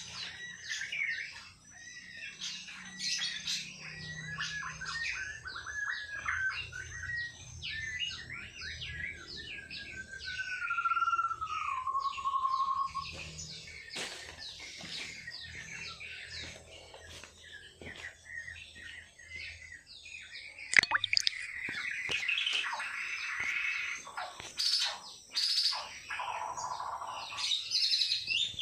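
White-rumped shamas singing: rapid, varied high chirps, with a long whistle that slides downward about ten to thirteen seconds in and fuller, louder phrases in the last third. A single sharp click about two-thirds of the way through is the loudest sound.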